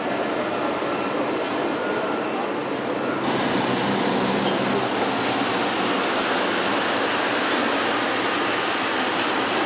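Roller brake tester turning a MAN truck's wheels during a brake-force test. The tyres and the driven rollers make a steady noise, which gets louder and brighter about three seconds in.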